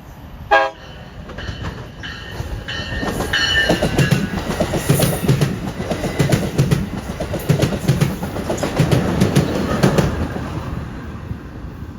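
A train passing at track speed. It gives a short horn blast about half a second in, then a rhythmic clickety-clack as its wheels cross the rail-joint gaps, which fades away near the end.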